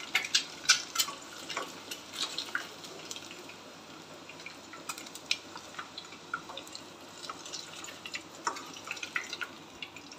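Hot oil sizzling around whole boiled eggs frying in a pot, with a steady soft hiss and an irregular scatter of sharp pops and crackles as the eggs turn golden.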